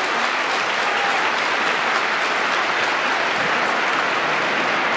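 Large stadium crowd clapping steadily: dense, even applause from the stands.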